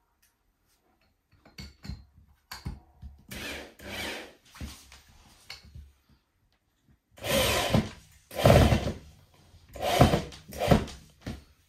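Handheld power drill run in a series of short bursts into wooden battens, with knocks of wood being handled; the bursts get louder and longer in the second half.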